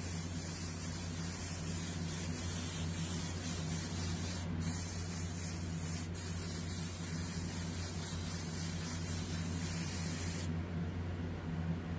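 Gravity-feed airbrush spraying paint through a stencil: a steady hiss of air, broken by two brief pauses about four and six seconds in, that stops shortly before the end.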